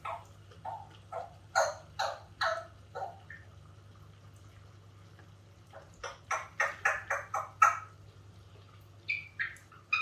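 AquaClear 30 hang-on-back aquarium filter priming, its intake gurgling and slurping in short bursts as it draws air and water, with a faint steady motor hum underneath. The gurgles come in a cluster, pause for a couple of seconds, then return in a quick run: the filter has not yet fully taken on water.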